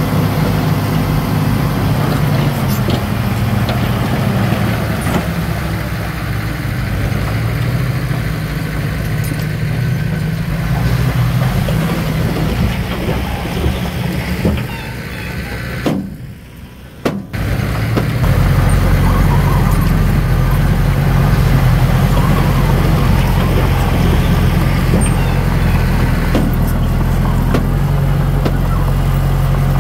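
Heavy diesel earthmoving equipment running, a steady low engine drone. About two-thirds of the way through the sound briefly drops away, then comes back as a steadier, stronger low hum.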